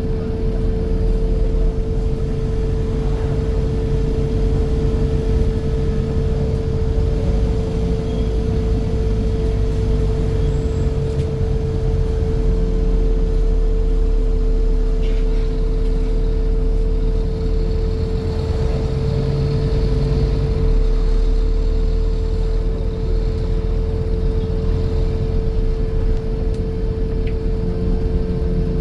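Scania N230 bus heard from on board while under way: the diesel engine's low rumble with a loud, steady buzz held at one pitch throughout.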